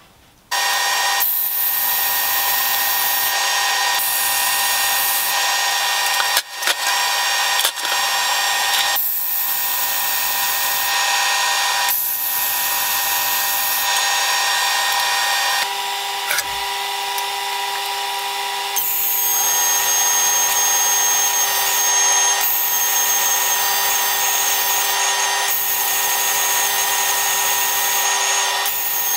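Power tool spinning a wire wheel to brush steel subframe parts clean before welding. It gives a steady whine with a scratchy hiss that comes and goes as the wheel bears on the metal. It starts about half a second in and stops briefly about six seconds in.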